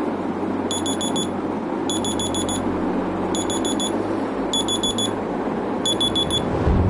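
Alarm clock beeping in groups of four quick high-pitched beeps, repeating a little more often than once a second, over a steady background hiss.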